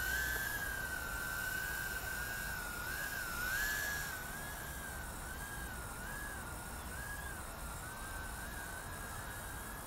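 A JJRC H36 mini quadcopter's four tiny brushed coreless motors give a high, thin whine while it flies. The pitch rises and falls in small waves as it is flown, with a brief louder swell about four seconds in.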